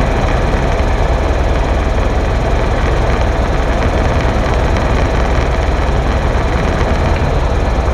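Helicopter in flight: loud, steady rotor and engine noise with a deep rumble and a faint steady whine running through it.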